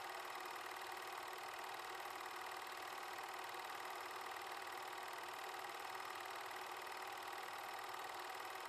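8mm film projector running: a steady mechanical whir and light clatter from its motor and film transport, with no change throughout.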